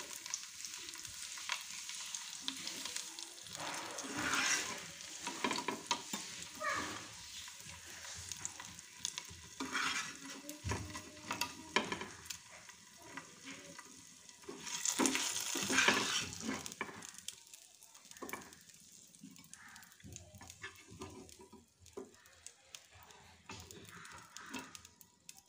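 Pieces of gule fish sizzling and crackling in hot mustard oil while a spatula scrapes the pan and lifts them out, in louder bursts every few seconds.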